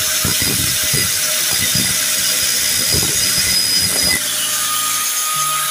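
Electric angle grinder with a grinding disc grinding steel rebar, a loud steady whine and hiss with rough scraping from the disc's contact. About four seconds in the disc lifts off the metal and the grinder runs free.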